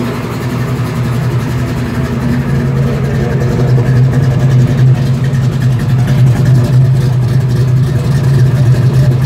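1967 Camaro's fuel-injected stroker V8 idling steadily, heard at the tailpipes: an even, deep exhaust rumble that grows a little louder over the first few seconds.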